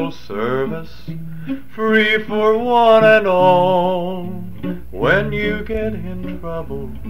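A man singing long, sliding notes to a strummed acoustic guitar, on a lo-fi 1959 home tape recording.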